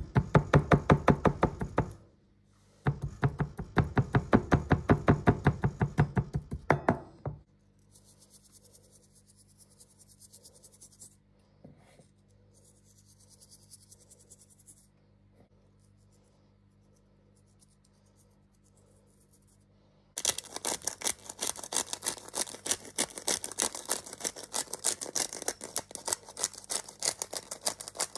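A chef's knife taps rapidly against a wooden cutting board as it scores raw chicken breast, in two runs broken by a short pause about two seconds in. Then comes a faint hiss of salt sprinkled by hand onto the meat. From about twenty seconds in, a spice grinder clicks rapidly as pepper is ground over it.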